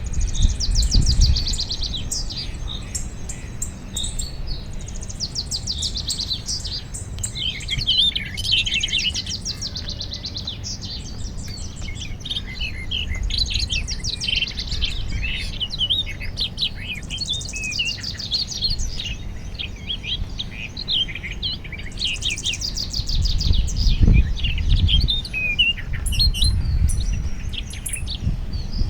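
Several small birds chirping and trilling together in a dense, overlapping morning chorus of short high notes and rapid trills. A low rumble rises underneath about a second in and again near the end.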